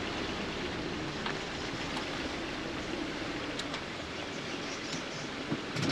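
Steady running and tyre noise of a Subaru Crosstrek on a rough off-road track, with a few light knocks.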